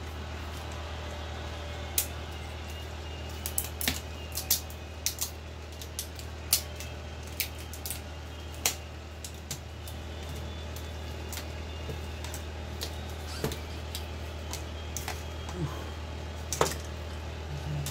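Plastic clips of an HP laptop's screen bezel clicking and snapping as the bezel is pried off the display lid by hand: about a dozen sharp, irregular clicks over a steady low hum.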